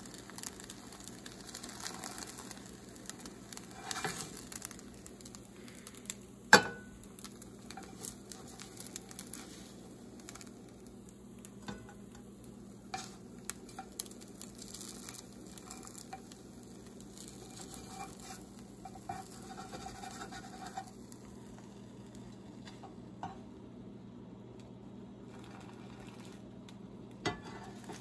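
Pancakes sizzling in a hot frying pan, with a spatula scraping and knocking against the pan now and then and one sharp clack about six and a half seconds in. The sizzle grows fainter in the last few seconds.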